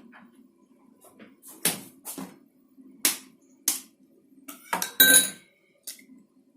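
An egg being knocked against the rim of a dish to crack it: four sharp knocks, then a quick cluster of clinks with a short ring about five seconds in.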